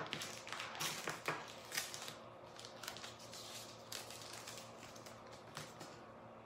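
Masking tape peeled off its roll in a few noisy pulls over the first couple of seconds. Quieter handling follows, with a few short crackles of the tape later on.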